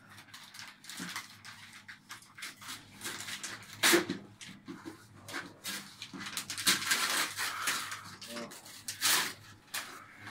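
Wrapping paper crinkling and tearing in a run of short, irregular rustles as a present is unwrapped by hand, with the loudest tears about four seconds in and again near the end.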